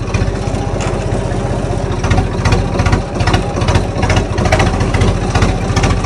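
Tractor engine running with a steady low throb, joined from about two seconds in by a sharp clatter repeating two or three times a second.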